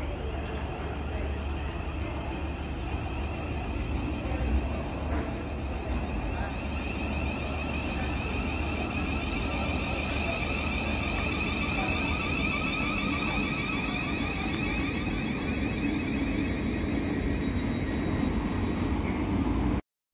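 Class 707 electric multiple unit pulling into the platform and slowing to a stop, with a high electric traction-motor whine over steady wheel and rail noise. The whine is loudest as the train passes, fades as it comes to rest, and the sound cuts off suddenly near the end.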